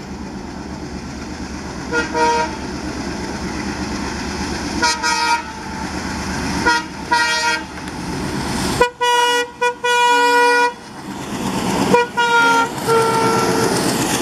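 ALCO-design WDM 3D diesel locomotive sounding its horn as it approaches: short toots about two, five and seven seconds in, then longer blasts around nine to eleven seconds and again near twelve seconds. Under the horn its engine runs steadily, growing louder near the end as the locomotive passes close.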